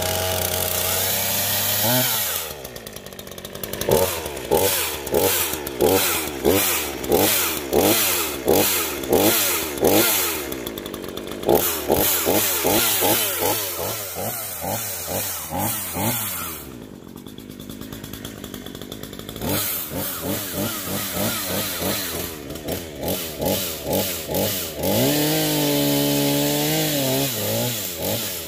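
Craftsman S145 14-inch two-stroke gas chainsaw running just after being started, its throttle blipped again and again, about once a second, with a short spell back at idle in between. Near the end it is held at high revs for a few seconds.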